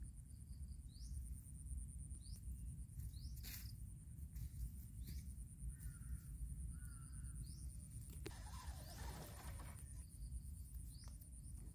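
Faint riverside ambience: small birds chirping in short rising notes about once a second over a low wind rumble, with a crow cawing twice about halfway through. Near the end there is a brief rustle.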